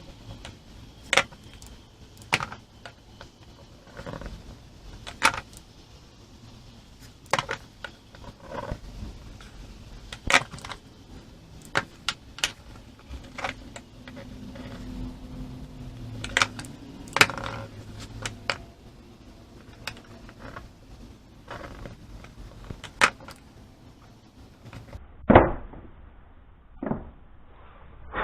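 Scattered sharp clicks and knocks of metal mounting hardware being handled and set down on an aluminium plate while bolt holes are marked, about one every second or two. The loudest knock comes near the end.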